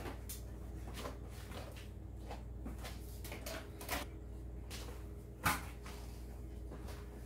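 A few sharp clicks and knocks of plastic RC model cars being handled and set down, the loudest about five and a half seconds in, over a steady low hum.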